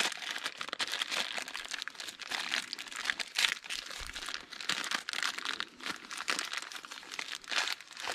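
Thin clear plastic bag crinkling and crackling in the hands as a new hydraulic pilot filter is worked out of it: a continuous rustle made of many short, sharp crackles.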